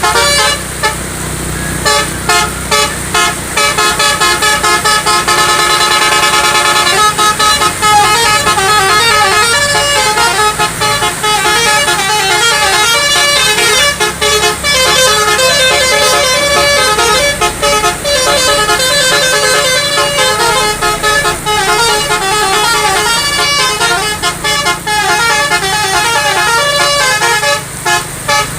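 A bus telolet horn, a Basuri multi-tone horn, playing a tune of rapid note changes, with one long held chord about five seconds in.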